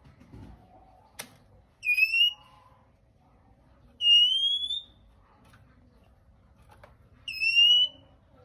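Male oriental magpie-robin giving three drawn-out whistled notes, each rising slightly in pitch, spaced a couple of seconds apart. A single sharp click comes just before the first note.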